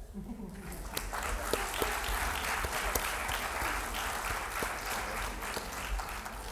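Audience applauding: a dense patter of many hands clapping that builds up about half a second in and tapers off near the end.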